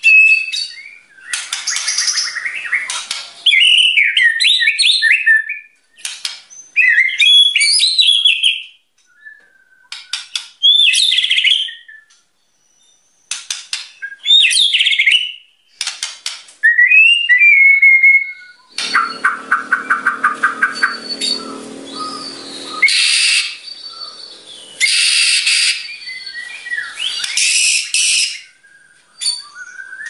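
White-rumped shama singing loudly: rapid, varied whistled phrases in short bursts with brief pauses between them. About two-thirds through comes a lower, buzzy stretch of about four seconds before the whistled phrases resume.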